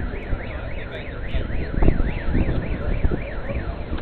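Electronic siren wailing in a fast up-and-down sweep, about three rises and falls a second, stopping shortly before the end. A dull thump about two seconds in.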